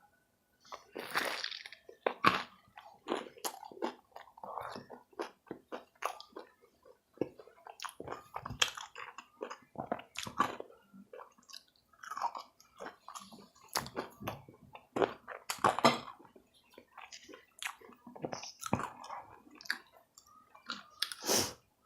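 A person chewing and crunching a mouthful of Totino's stuffed nachos, with irregular bites and crunches throughout.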